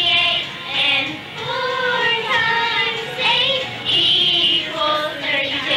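A young girl singing a song into a microphone, a held, wavering melodic line with short breaks between phrases.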